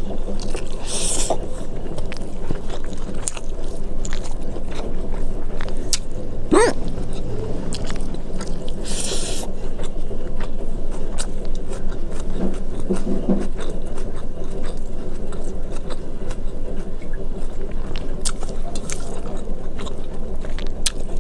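Close-miked eating: chewing and wet mouth clicks with a couple of brief scrapes, over a steady background hiss.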